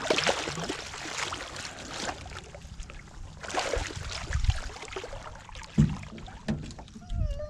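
Water splashing and sloshing in irregular bursts as a hooked pink salmon is brought to the boat and landed, with a few dull knocks against the boat in the second half.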